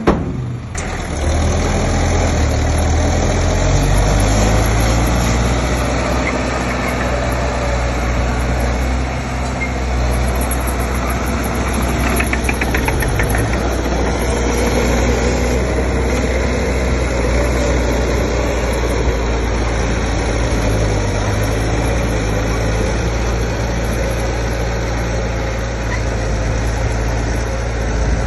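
Diesel engine of heavy earthmoving machinery running steadily under a low drone, with a brief rattle about halfway through.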